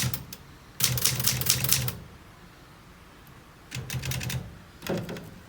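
Vintage Olivetti typewriter being typed on: quick runs of key strokes, the typebars clacking against the platen, first a run of about a second, then a shorter burst and a few last strokes near the end.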